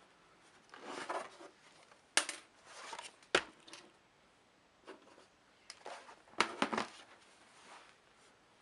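Small tools handling a laptop's plastic case and screws: irregular sharp clicks and short scrapes, the loudest clicks coming about two, three and six and a half seconds in.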